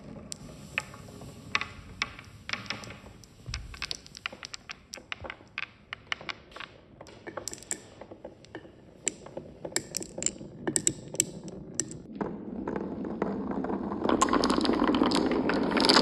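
Glow-in-the-dark marbles rolling down a marble run, knocking together in irregular sharp clicks. From about twelve seconds in, a louder, denser rolling clatter takes over as a crowd of marbles runs through tubes.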